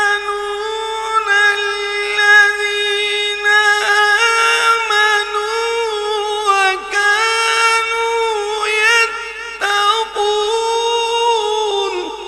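A qari's voice in melodic Quran recitation, holding long high notes with ornamented turns in pitch and two brief breaks, fading at the end.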